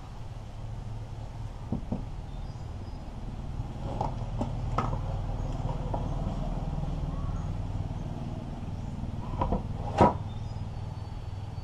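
Scattered clicks and knocks of a motorcycle stator coil assembly and its wiring being handled and fitted, the loudest a sharp knock about ten seconds in. A steady low rumble runs underneath.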